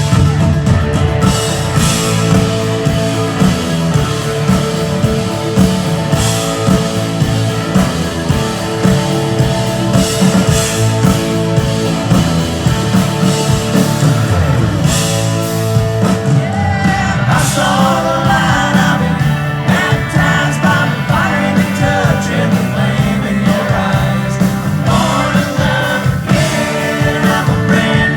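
Loud rock music with a steady pulsing beat; a lead melody with wavering, bending pitch comes in a little over halfway through.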